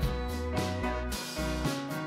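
Instrumental background music with a bass line and a regular beat.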